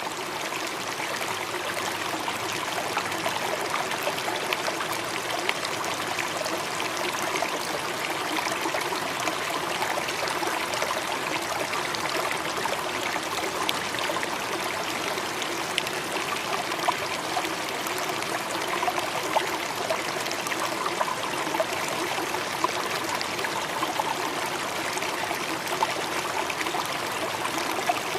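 Waterfall: a steady rush of falling water, with a sharper splash now and then.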